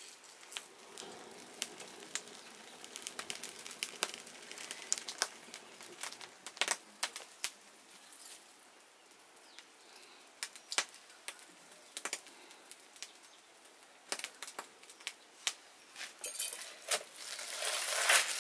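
Irregular crackling and popping of a whole chicken being singed over an open fire, its feathers and skin burning off. The crackle grows louder and denser near the end.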